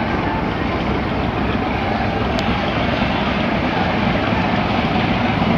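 Steady rumbling drone of a river passenger launch's engine, with a brief tick about two and a half seconds in.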